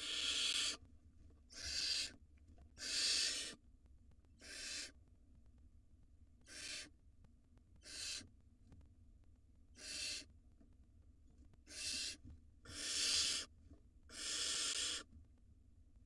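Barn owl nestlings giving their food-begging call: about ten harsh, breathy hissing shrieks, each lasting half a second to a second, at irregular intervals. The last few are longer.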